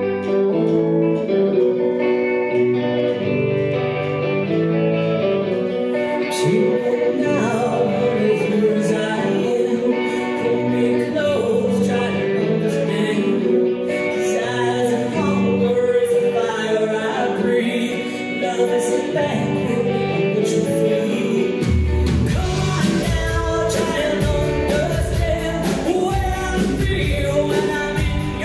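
Live rock band playing a song: singing over electric guitars and bass. A heavy low end comes in about three quarters of the way through as the band fills out.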